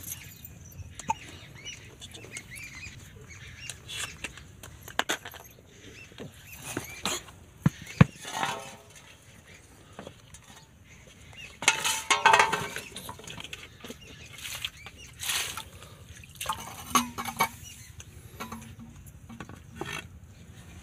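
Scattered light knocks and clinks of tomatoes and steel plates being handled, with one sharp clink about eight seconds in. A few short calls sound in the background.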